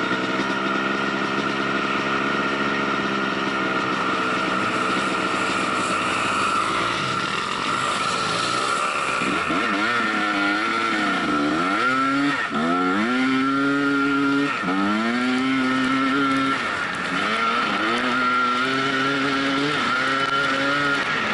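Dirt bike engine being ridden: it holds a steady pitch at first, then from about nine seconds in revs repeatedly up and down as the throttle is worked on and off.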